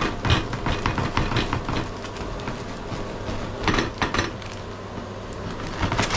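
Serrated bread knife sawing through the hard crust of a sourdough loaf, in uneven bursts of short crackling scrapes.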